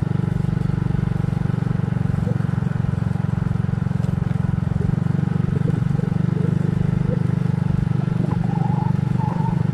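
Motorcycle engine running at a steady cruise, heard from the rider's seat: an even low drone with rapid firing pulses.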